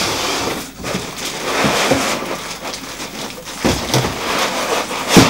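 Cardboard box and packing material being handled: a continuous rustling and scraping of cardboard, foam and plastic wrap as an item is worked free, with a few knocks, the loudest near the end.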